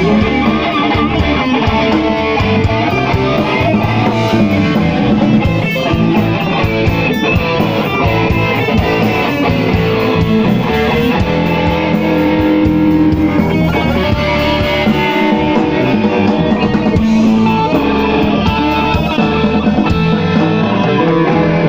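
A live blues-rock band playing loud, with electric guitars over a full drum kit, in an instrumental passage without vocals.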